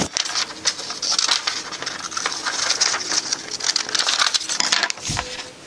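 Paper being handled and crinkled, a dense run of crackles and clicks that stops about five seconds in with a low thump.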